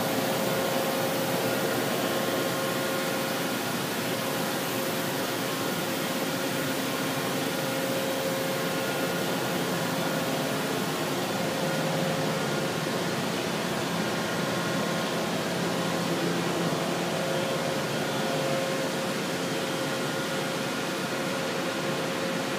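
Steady hum and hiss of a powered-on, idle Makino A82M horizontal machining center, with a faint steady whine.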